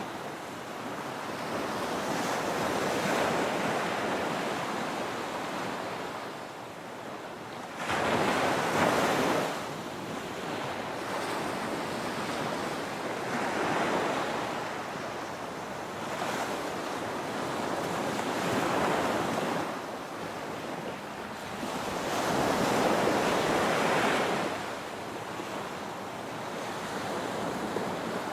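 Ocean waves breaking on a beach, the surf swelling and receding every few seconds, with the loudest breakers about a third of the way in and again near three quarters through. Light wind noise on the microphone.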